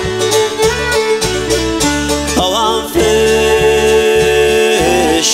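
Country-style song playing, an instrumental stretch between sung lines, with a long held note through the second half.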